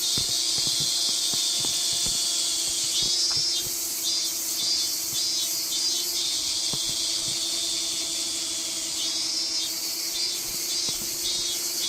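A small camera drone's propellers hum steadily under a strong high hiss. A high, pulsing chirp of about three pulses a second comes and goes in short phrases.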